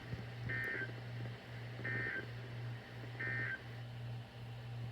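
NOAA Weather Radio SAME end-of-message signal: three short bursts of digital data tones, a little over a second apart, marking the end of the alert test. A low steady hum lies underneath.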